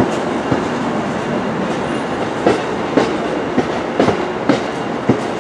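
Amtrak Northeast Regional's Amfleet passenger coaches rolling past close by: a steady rushing rumble of wheels on rail, broken by sharp clicks from the wheels over the track every half second to a second.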